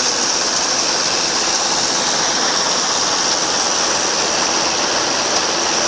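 Combine harvester working a paddy field at close range: a loud, steady rushing noise of the machine's engine and threshing.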